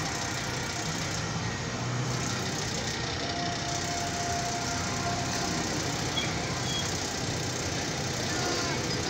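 Steady traffic noise heard from inside a car's cabin in slow city traffic: engines running with a low rumble, and no sharp events.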